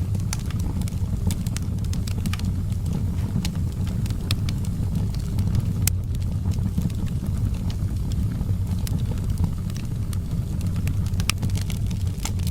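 Wood fire burning in a fireplace: a steady low rumble with scattered sharp crackles and pops, one louder pop about halfway through.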